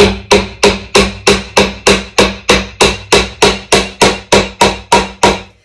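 Hammer driving a nail into the thin wooden roof board of a birdhouse: a quick, steady run of light strikes, about three a second, that stops about five seconds in.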